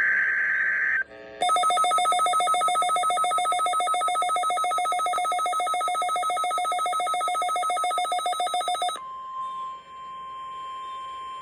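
The tail of a SAME digital data burst buzzes for about a second. After a short pause the Midland WR400 weather radio's own alert alarm sounds, a rapidly pulsing two-tone beeping, for about seven seconds. It cuts off into a quieter, steady single-pitch NOAA Weather Radio warning alarm tone.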